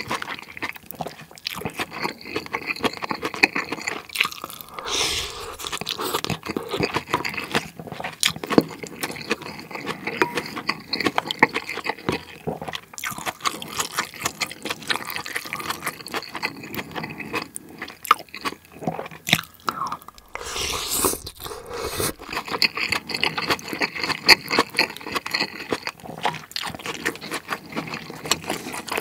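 Close-miked eating sounds: wet chewing and smacking of pork rice soup, with the clicks of wooden chopsticks against a ceramic bowl. About five seconds in and again near 21 seconds there are longer, noisier stretches.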